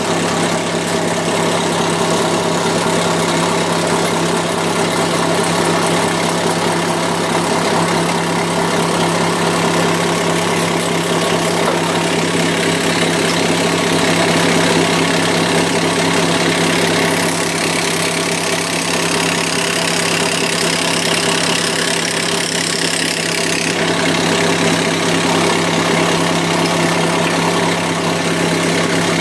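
Torrington 433 rotary swager running with a loud, steady mechanical hum, its dies hammering continuously as an air-conditioning tube assembly is swaged.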